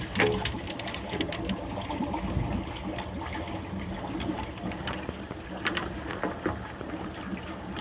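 Aerobic septic treatment unit running, its aerator bubbling and churning the sewage in the open tank: a steady watery wash over a low steady hum. A few light clicks and knocks break in, the first just at the start.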